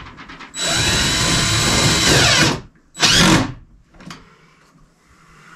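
Power drill driving a screw to mount an electrical junction box: a steady run of about two seconds, then a short burst about three seconds in.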